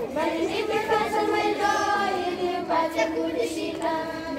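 A group of children and girls singing a song together in chorus, with held notes that move from pitch to pitch.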